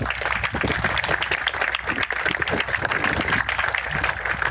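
Crowd applauding steadily, a dense mass of clapping.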